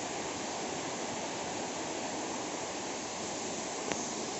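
Steady rushing of a waterfall heard from the approach path, an even wash of falling water. There is one faint click near the end.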